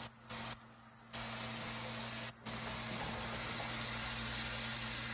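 Steady sizzling hiss of chorizo frying in a skillet, with a faint low electrical hum underneath.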